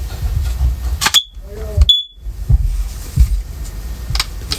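First Alert hardwired OneLink smoke alarm, which the owner believes is a third-generation unit, giving two short high beeps about a second apart as its battery drawer is pushed in and it powers up. The first beep comes with a click. Handling rumble and a few small knocks follow.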